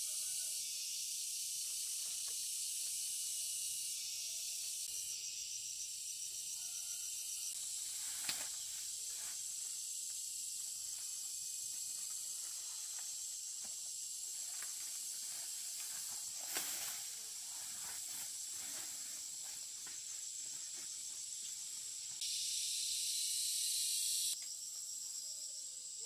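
Steady high-pitched insect buzz, with a few light snaps.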